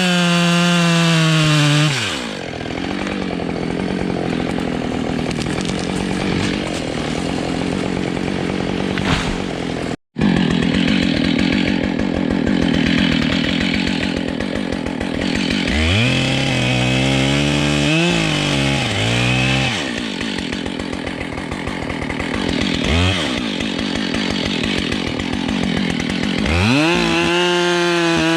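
Husqvarna 572 XPG chainsaw cutting through beech. It runs at full revs, bogs down to a lower, rougher note under load while cutting, is blipped up and down a few times, and revs back up near the end. The saw is new and not yet run in, which the owner says makes it sound slightly different.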